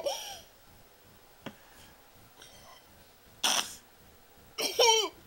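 Mostly quiet, broken by a small click, then a short breathy puff about three and a half seconds in. A brief high, wavering child's vocal sound follows near the end.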